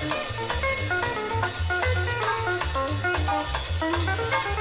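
Instrumental background music, with a repeating bass line under short, bright melody notes.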